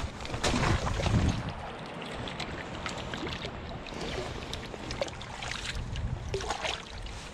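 Spring creek water running steadily, with wind noise buffeting the microphone, loudest in the first second and a half.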